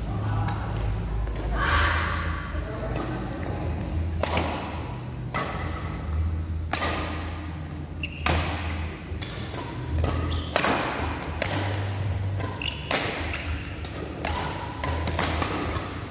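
Badminton rally: rackets striking the shuttlecock in a string of sharp hits at irregular spacing, roughly one a second, over a steady low hum.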